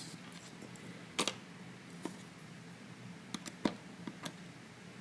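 Light, scattered clicks and taps of small lockpicking tools working in a padlock: about six short clicks, the sharpest about a second in and a quick cluster of three a little past the middle.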